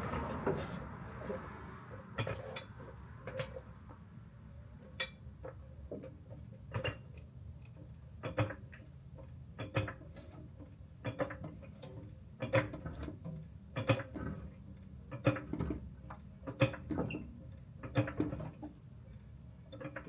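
A jack being pumped to lift a car engine: metal clanks, irregular at first, then coming evenly about every second and a half.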